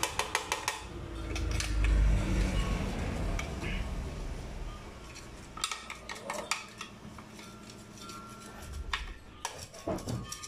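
Glass pitcher clinking and knocking as fried chile de árbol is shaken and tapped out of it onto a tub of peanuts, with a few sharp clicks in clusters. A low rumble swells about a second in and fades by the third second.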